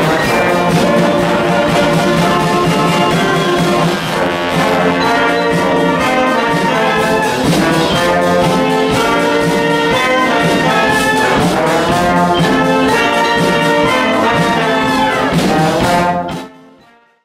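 Brass band music with trombone and trumpet, fading out quickly near the end.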